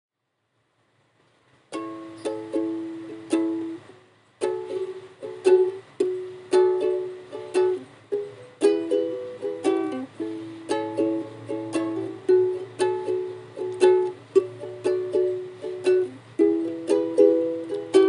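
Solo ukulele playing a melody of single plucked notes and small chords, starting about two seconds in with a brief pause near four seconds.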